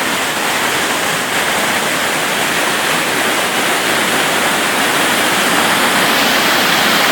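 Waterfall: a steady, loud rush of falling water, growing slightly louder toward the end.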